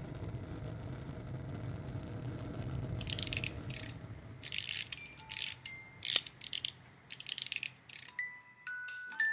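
A low steady rumble, then a run of about eight short hissing bursts, each under a second. Near the end, a few single high chime notes begin to ring.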